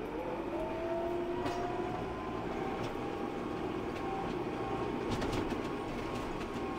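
Tractor pulling away with a hay rake: the engine and drivetrain whine climbs in pitch as it speeds up, then runs steadily, with scattered light clicks and rattles.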